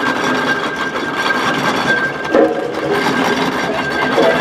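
Steam road roller running along the road, its engine and motion giving a fast, even mechanical clatter, with a thin steady high tone over it.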